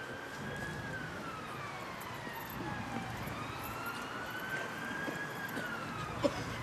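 Emergency-vehicle siren wailing, its pitch slowly rising and falling in long sweeps. A single sharp knock near the end.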